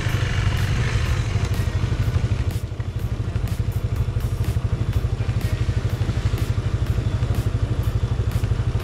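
Motorcycle engine running steadily at low revs with a fast, even pulse, the bike rolling slowly along a dirt trail.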